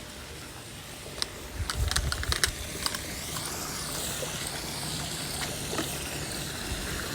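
Pool brush scrubbing a rough pool surface. It starts with a few scattered clicks and knocks, then settles into a steady, scratchy rasping.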